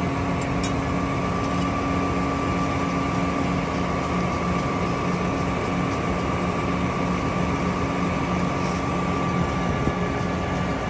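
John Deere 7R 310 tractor's diesel engine idling with a steady hum, with a few faint clicks near the start.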